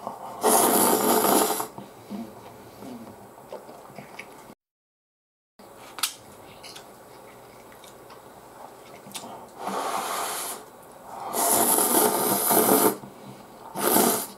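Instant ramen noodles slurped noisily off chopsticks, four long slurps, the first about half a second in and the last three close together near the end, with quiet chewing and small clicks between. The sound drops out completely for about a second near the middle.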